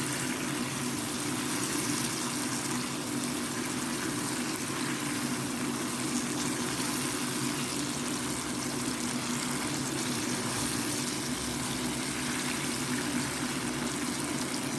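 Pot of seasoned chicken simmering on the heat, giving a steady sizzling, bubbling hiss.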